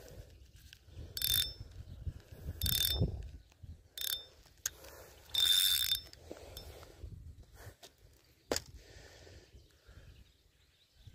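Spinning fishing reel being worked by hand, giving four short ratcheting whirrs with a high ringing tone, then a single sharp click.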